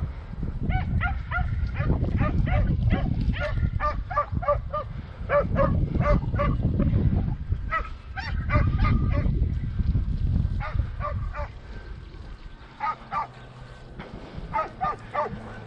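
Podenco hunting hounds barking in quick repeated bouts, about two or three barks a second, with the longest run in the first half. A loud low rumble runs under the barks for the first ten seconds or so, then drops away.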